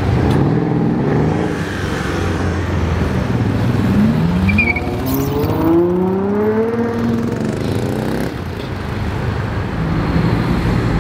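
Ferrari 812's V12 accelerating away, its engine note rising steadily for about three seconds in the middle, over other cars running in slow traffic.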